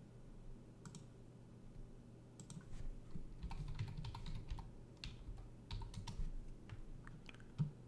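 Typing on a computer keyboard: a quick, uneven run of keystrokes starting about two and a half seconds in.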